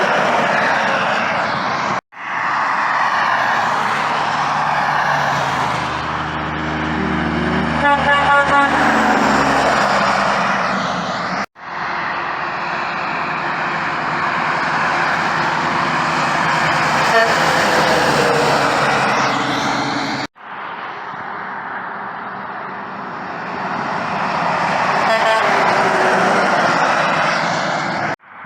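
Heavy trucks passing on a highway: engine and tyre noise swelling and fading as each one goes by, in several short segments that cut off abruptly. About eight seconds in there is a brief run of rapid pulses.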